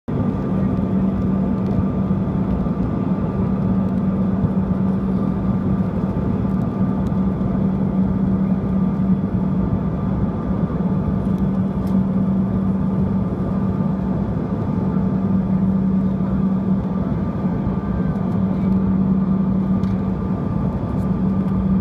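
Cabin noise inside a Bombardier CRJ-200 in flight on its approach: the steady rush of air over the fuselage and the drone of its two rear-mounted General Electric CF34 turbofans, with a strong low hum and a fainter higher tone.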